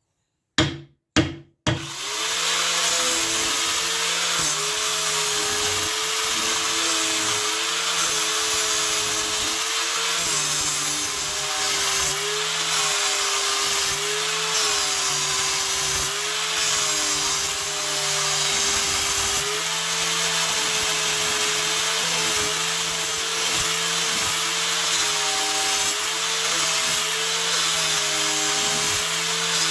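Two or three sharp knocks, then an electric power tool starts and runs steadily, its motor pitch wavering slightly as the load changes.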